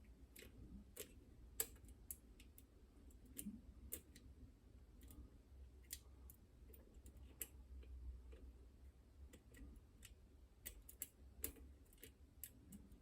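Faint, irregular small metallic clicks and ticks of picking tools working the levers inside a Chubb Detector lever lock under heavy tension, a few clicks a second at uneven spacing.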